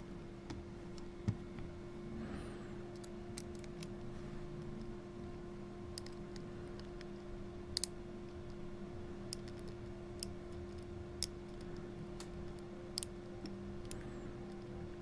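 Scattered small metallic clicks, about ten at irregular intervals, from a lock pick and tension wrench working the pins of a Master Lock No. 3 pin-tumbler padlock. A steady low hum sits underneath.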